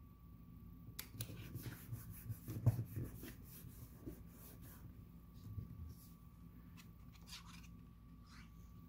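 Cardstock and paper layers being handled and pressed down by hand on a tabletop: a run of light rustles, slides and taps, with one soft knock about three seconds in.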